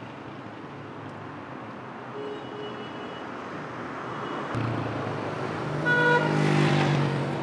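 Street traffic passing. The loudest moment is a vehicle going by close about six seconds in: a pitched engine or horn sound and a rush of tyre noise swell and then fade.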